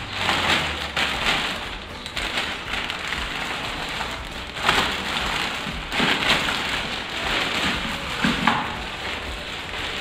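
Clear plastic packaging film around a new vacuum cleaner crinkling and rustling as it is handled, with a few louder crackles.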